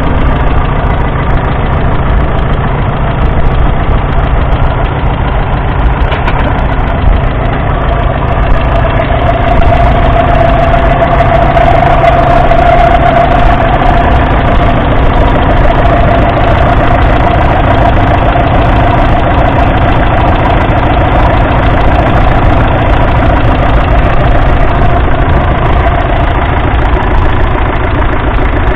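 Ferguson TEF 20's 2.1-litre four-cylinder diesel engine running steadily at close range while the tractor pulls a plough.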